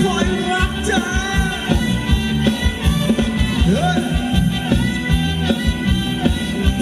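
Live band playing Thai ramwong dance music, with a steady drum-kit beat under a bending melody line.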